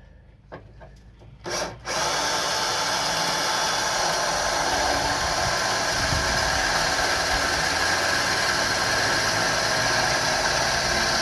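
Electric drill running continuously from about two seconds in, drilling out spot welds in car body sheet metal, after a couple of short knocks.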